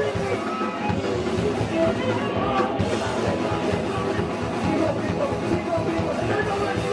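Hardcore punk band playing a song live, with no break in the music.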